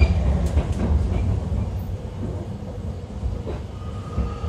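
Running sound inside a JR Kyushu 813 series electric train's motor car: a steady low rumble of wheels on the rails, with a few light clicks about half a second in. A steady whine sets in near the end.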